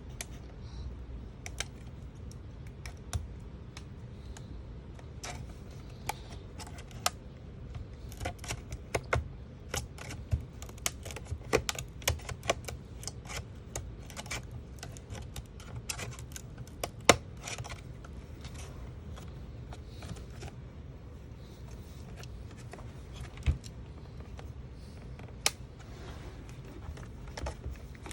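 Irregular clicks, snaps and cracks of plastic clips giving way as a metal pry tool separates an HP laptop's screen bezel and LCD panel from the frame, over a steady low hum.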